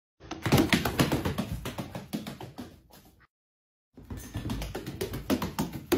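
Rapid, irregular tapping and clicking on a hardwood floor, in two runs that each fade away, broken by a brief total silence about three seconds in.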